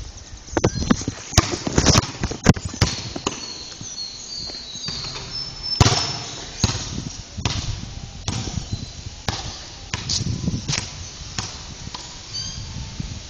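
Irregular knocks, thumps and rubbing of a phone being handled and carried while it films on the move, with short high bird chirps in the background.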